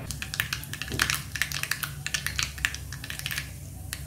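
Mustard seeds spluttering in hot oil in a small tempering pan: rapid, irregular crackling pops that thin out near the end.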